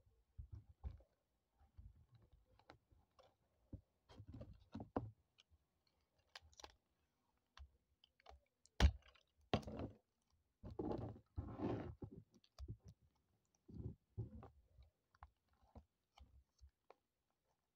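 Clear tape and paper crinkling and rustling as hands handle tape-covered paper crafts, with scattered small clicks, a sharp tap about nine seconds in and longer crinkly stretches shortly after.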